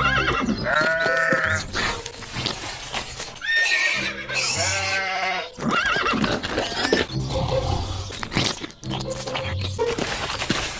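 Animal calls: several high, wavering cries a few seconds apart over a low steady hum.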